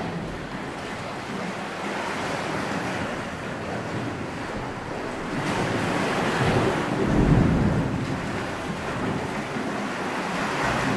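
Sea waves surging and washing in a sea cave below the cliff, with wind buffeting the microphone. About seven seconds in, the wash swells to its loudest with a deep rumble as a wave pushes into the cave.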